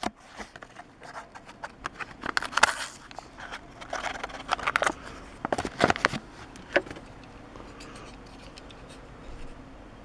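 Toy car blister packaging being torn open by hand: plastic and card crinkling, scraping and tearing in quick crackles that stop about seven seconds in.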